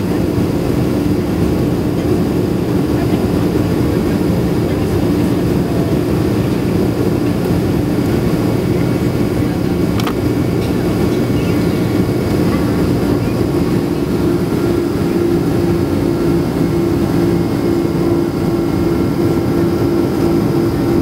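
Boeing 767-400 jet engine and airflow noise heard inside the passenger cabin during climb-out after takeoff: a steady loud rush with a low hum that grows stronger about two-thirds of the way through.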